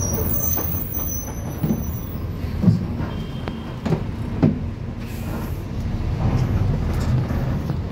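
City bus heard from inside: the engine's steady low rumble with several short knocks and rattles from the body.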